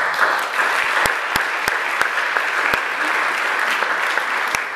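Audience applauding steadily, with a few louder, sharper claps standing out.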